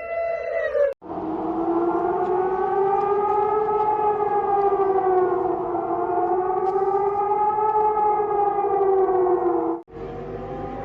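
Emergency-alert alarm tones played in reverse. A steady tone slides down and cuts off about a second in. Then a siren-like wail in two pitches, both slowly rising and falling, runs for about nine seconds and stops abruptly near the end, where another alert tone begins.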